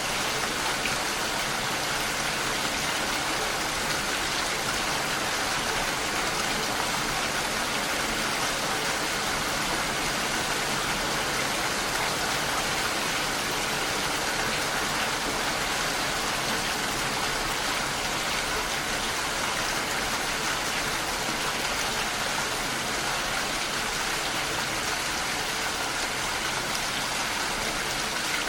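Steady rain falling, an even hiss of drops that holds without change.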